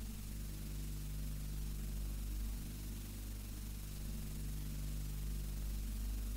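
Low, steady hum of several held pitches, with a faint hiss over it.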